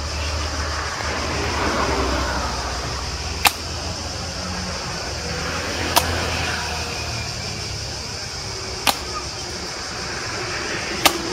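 Evzone guards' hobnailed tsarouchia shoes stamping on stone pavement in the slow ceremonial march: four sharp single strikes a few seconds apart, over steady street noise and faint voices.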